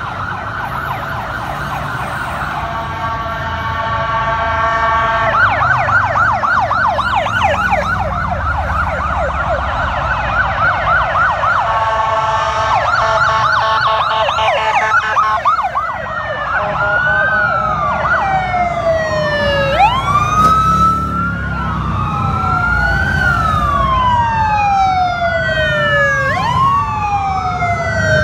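Police sirens of an approaching escort. First a quick warble, then about five seconds in a fast yelp of rapid rising sweeps, and from about seventeen seconds in a slower wail that rises and falls every few seconds, with more than one siren overlapping. Vehicle engines rumble underneath.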